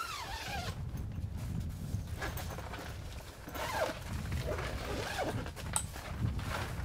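A zipper on the fabric door of an awning tent is pulled in several quick strokes, each a short rasp that rises and falls in pitch, over a steady low rumble.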